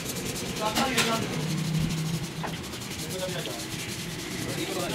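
Hands and a sanding pad rubbing over the wet, painted steel of a motorcycle frame, in quick, steady scrubbing strokes as the old paint is sanded down.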